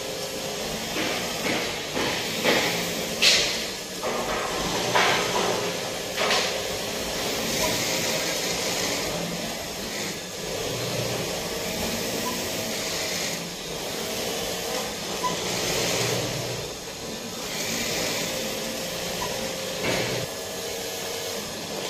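Juki industrial sewing machine stitching the border of a blanket bedsheet in stretches, over a steady mechanical hum of the workshop. Several sharp clacks come in the first seven seconds, and one more near the end.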